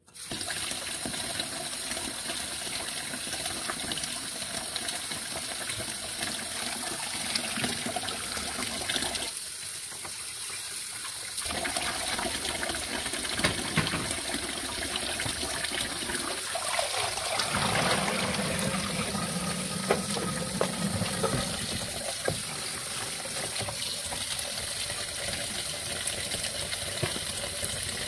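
Kitchen tap running into a plastic colander and basin in a stainless steel sink, a steady splash of water on cooked noodles being rinsed so they don't stick together. Small clicks now and then.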